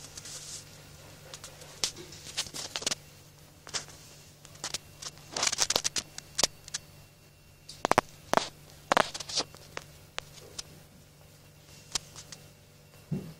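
Scattered light clicks and rustles from a ragdoll kitten moving about on a tiled floor and poking against a cardboard box, with denser bursts about halfway through and again a couple of seconds later. A faint steady hum runs underneath.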